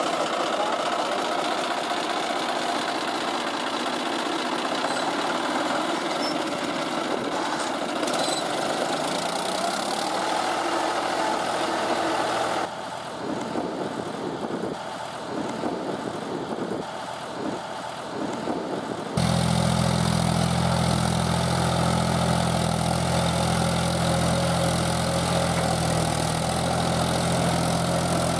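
John Deere 5310 tractor's three-cylinder diesel engine running steadily as it pulls a leveling blade through mud. It is quieter with a wavering level through the middle, then a louder, deeper steady drone from about two-thirds in.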